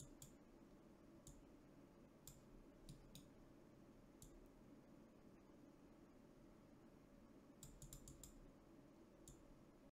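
Faint computer mouse and keyboard clicks: scattered single clicks a second or so apart, then a quick run of several clicks about eight seconds in, over a low steady room hum.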